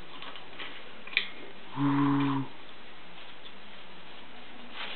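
A blue-and-gold macaw gives one short, low, steady call lasting under a second, shortly after a faint click.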